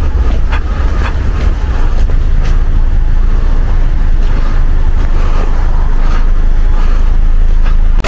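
A Toyota C-HR driving along the road toward the microphone with its bonnet up, under a heavy, steady low rumble of road and wind noise, with a few faint clicks.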